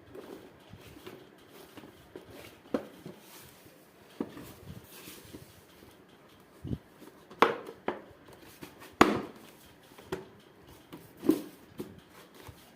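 Plastic housing parts of a Bosch pressure washer being handled and pressed together: scattered clicks and knocks, with a few sharper knocks in the second half.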